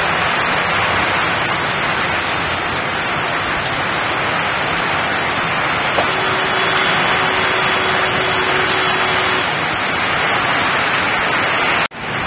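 Heavy rain pouring onto a road, a steady dense hiss. A faint steady tone sounds for a few seconds in the middle.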